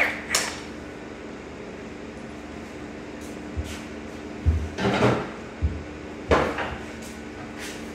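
A few scattered metal knocks and clanks of tools and parts being handled, with a louder cluster about halfway through. A steady low hum runs underneath.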